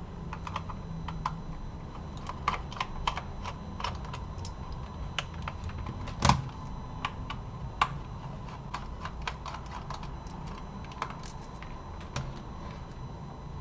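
Scattered light clicks and taps of a small screwdriver and fingers handling a Sony WM-FX661 Walkman's casing as its tiny screws are taken out, with one louder knock about six seconds in.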